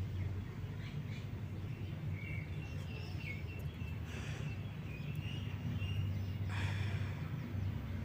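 Outdoor background: faint, short bird chirps over a low steady rumble, with a brief rustle about six and a half seconds in.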